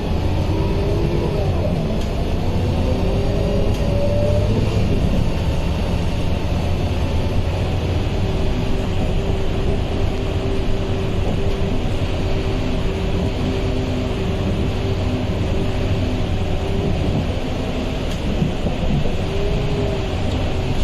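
Scania K230UB diesel city bus running, with a steady low rumble and a whining tone on top of it. The whine glides up and down in pitch over the first few seconds, holds steady through the middle, and bends again briefly near the end. This is the odd noise the bus is recorded for.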